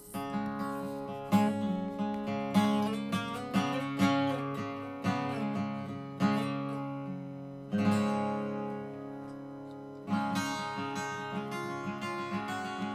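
Acoustic guitar music: strummed chords, a fresh strum about every second and a bit, each dying away, with one chord left to ring longer around the middle.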